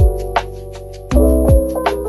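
Background music with a steady beat: a kick drum about every one and a half seconds and crisp clicking percussion over held chords.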